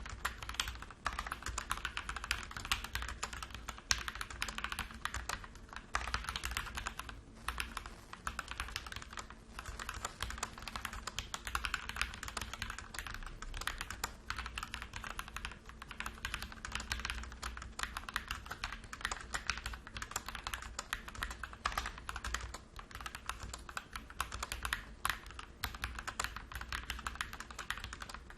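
Fast continuous typing on a MIIIW ART Series 68-key mechanical keyboard with stock Gateron Yellow Pro linear switches, a dense run of keystroke clacks with brief pauses between bursts.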